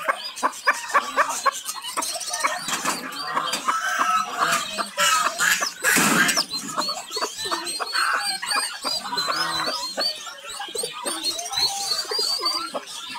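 A crowd of young chicks peeping, many high chirps overlapping continuously. A brief loud noisy burst comes about six seconds in.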